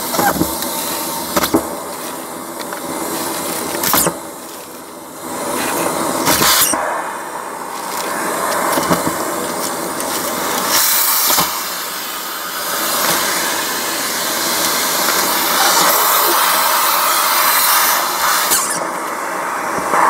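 Vacuum cleaner running steadily with a whine, its hose nozzle sucking up debris off the floor of a cardboard box. The sound dips for a moment around four seconds in, and surges briefly a few times as the nozzle picks things up.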